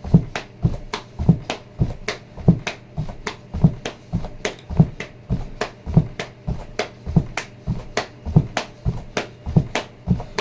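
Bare feet landing on a foam exercise mat during high-knee marches in ankle weights: steady thuds about every 0.6 seconds, every other one louder.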